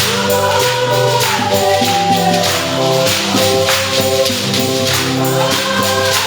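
Gospel-style music with a steady tambourine beat under a melody that rises and falls over sustained chords.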